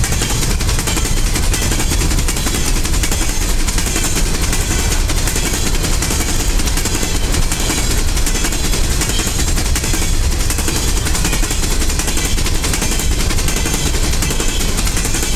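Loaded coal train's hopper cars rolling past close by, a steady loud rumble with a rapid clatter of steel wheels on the rails.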